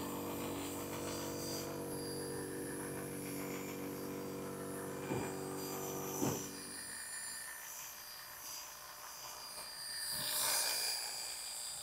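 Corded electric hair clippers running with a steady buzz while cutting short hair, with two short knocks, then stopping about seven seconds in. A soft rushing hiss swells briefly near the end.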